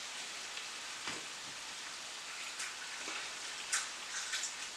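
Spaghetti in hot olive oil sizzling in a frying pan, a low, steady hiss with a few faint ticks.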